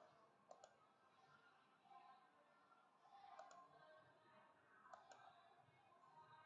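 Near silence broken by faint computer-mouse clicks, three pairs of quick clicks spread across a few seconds.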